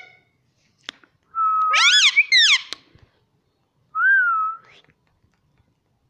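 Indian ringneck parakeet whistling: a loud warbling run of sliding whistle notes about a second and a half in, then one short rising-and-falling whistle about four seconds in.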